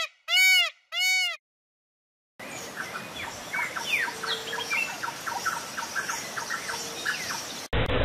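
Indian peafowl (peacock) giving two loud, arching calls about half a second each, one right after the other, after the tail of a third. After a second of silence comes a quieter outdoor background of a steady hiss with many short, rapid chirps.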